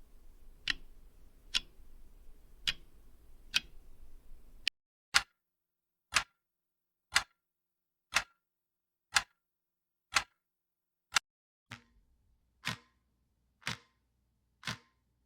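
AI-generated ticking clock sound effect: a clock ticking steadily, about one tick a second. A faint background hiss under the ticks cuts out about five seconds in, leaving clean ticks in silence, and a faint low hum comes in near the end.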